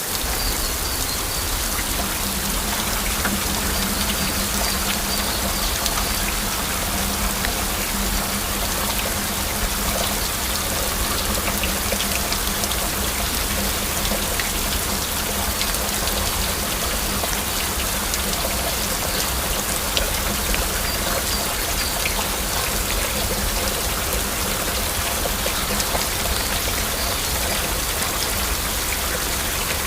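Heavy rain falling steadily, a dense patter of individual drops over an even hiss.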